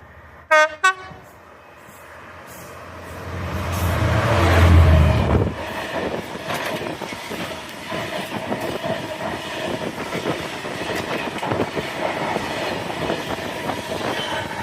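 Class 66 diesel freight locomotive sounding two short horn blasts about a third of a second apart, then passing at speed, its engine loudest about four to five seconds in. The freight wagons follow, rattling steadily over the rails.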